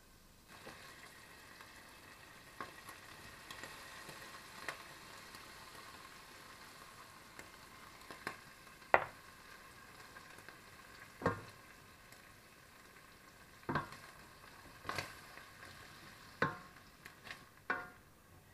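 Diced bacon sizzling steadily in olive oil in a stainless steel pot, stirred with a wooden spoon that knocks sharply against the pot about ten times, loudest about nine seconds in.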